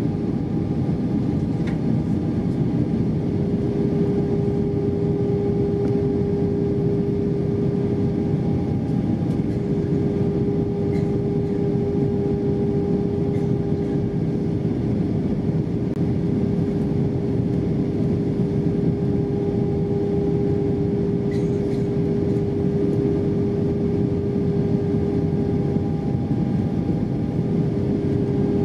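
Airliner cabin noise inside an Airbus A320-232 on approach to landing: its IAE V2500 engines and the airflow over the fuselage making a steady, even rush with a constant hum.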